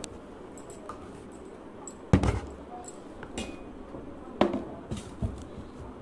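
A handful of short knocks and light clinks from small hard objects being handled and set down on a table. The loudest comes about two seconds in, and another is just past four seconds, over a faint steady hiss.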